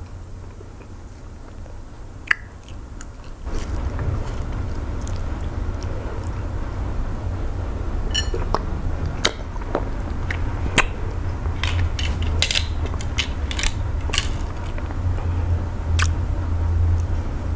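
Close-miked eating sounds: wet mouth clicks and smacks as a person chews eba with okro-melon soup eaten by hand, over a low steady rumble that comes in a few seconds in.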